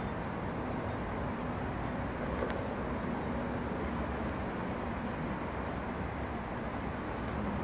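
Steady road-traffic rumble from the nearby bridge and riverside roads, with a faint low hum and a thin, steady high whine over it.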